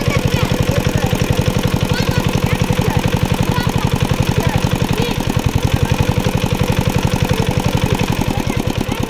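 Engine-driven water pump running with a fast, even chug, pumping water out of the pond through a hose.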